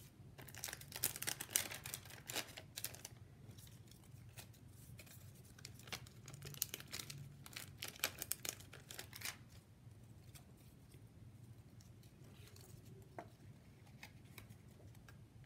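Paper rustling and crinkling under the hands, in bursts from about half a second to three seconds in and again from about six to nine seconds in, as a glue dot is peeled from its waxy backing sheet and paper craft legs are pressed onto a paper cut-out.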